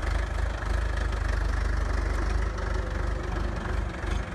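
Engine idling steadily, a heavy low rumble with a fast, even knocking beat.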